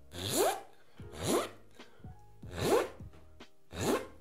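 Beatboxed zipper imitation made with the mouth: four quick rasping zips, each rising in pitch. Each zip is air drawn in through the lips, with the tongue resting against the inside of the lips and the tension increased during the stroke.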